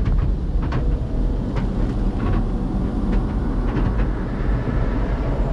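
Automatic car wash machinery heard from inside the car's cabin: a steady low rumble, with scattered light ticks and slaps as the cloth strips drag across the glass.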